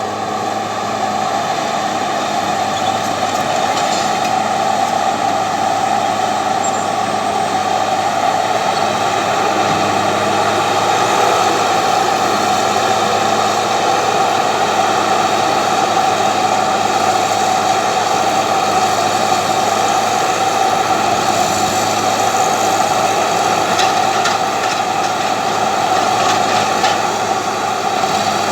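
Heavy machine engine running steadily under constant load, with a strong even hum that builds slightly in the first couple of seconds and then holds.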